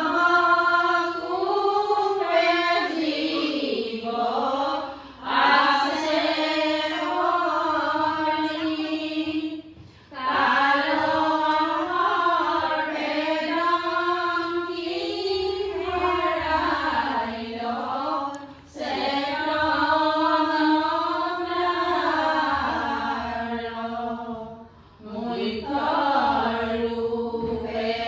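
Female voices chanting a devotional song in long, sustained melodic phrases, with brief breaks between phrases every five to eight seconds.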